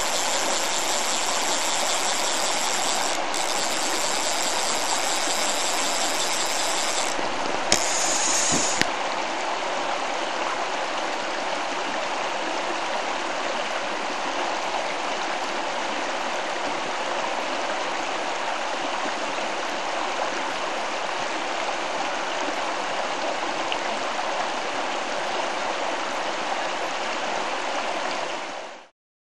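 Steady rush of stream water flowing over riffles. For about the first nine seconds a brighter high hiss sits on top of it, broken by two short clicks, and the sound fades out near the end.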